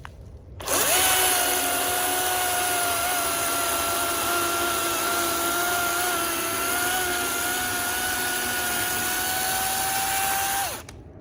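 DeWalt 20-volt battery chainsaw running: an electric motor and chain whine that starts under a second in, holds a steady pitch with slight wobbles for about ten seconds, then winds down and stops near the end.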